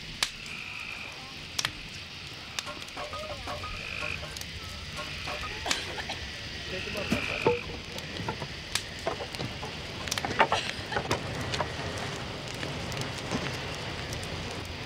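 Large burning cross crackling and popping with sharp snaps over a low rush of flame, which grows louder in the second half. Frogs call in the background, short calls repeated every few seconds.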